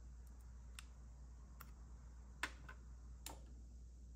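Small screwdriver prying at the plastic bezel of a Lennox 10F81 thermostat, giving about five faint, sharp plastic clicks spread over the few seconds; the loudest comes about two and a half seconds in.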